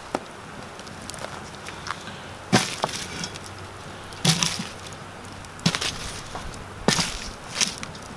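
Wood campfire crackling, with about six sharp pops at irregular intervals.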